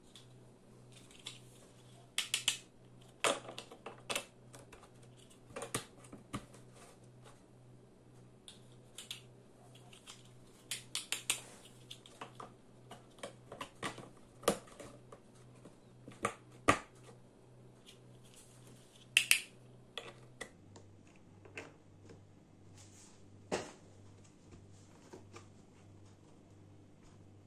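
Large plastic toy building blocks being pressed onto one another and set down: irregular clicks and knocks of hard plastic on plastic, with a few louder sharp snaps among them.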